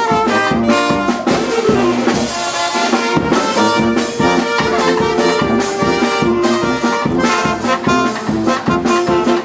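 Background music: a brass band with trumpets, trombones and drums playing a lively tune with a steady beat, with a falling brass slide about two seconds in.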